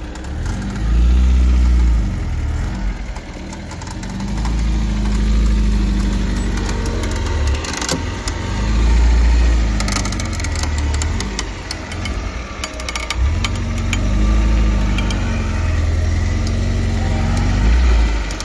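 Off-road vehicle's engine revving up and down in about five repeated swells as it works to climb a slick, muddy slope. Scattered sharp clicks and knocks come in around the middle.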